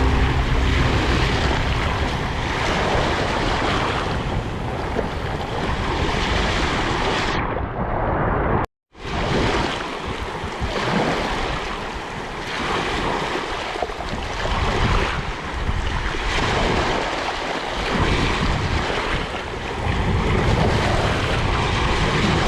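Sea surf washing continuously, swelling and easing every second or two, with wind buffeting the microphone. The sound cuts out for a fraction of a second about nine seconds in.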